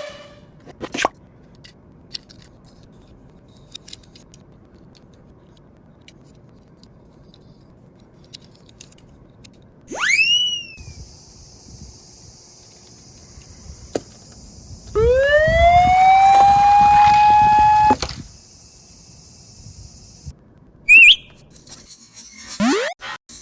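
Siren sound effect that winds up in pitch and then holds steady for about three seconds, over a high hiss. It is set between quick cartoon-style rising whistle glides, one about ten seconds in and short ones near the end, with faint clicks in the quiet stretches.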